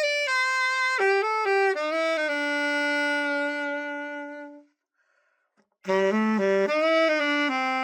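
Yamaha YAS-275 alto saxophone played as a test after its overhaul: a short phrase stepping down to a long held low note, a pause of about a second, then a second phrase stepping down to another held low note.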